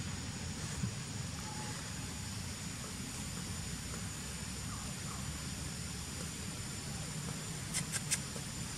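Steady low rumble of outdoor background noise with a thin, steady high-pitched tone over it, and a few sharp clicks near the end.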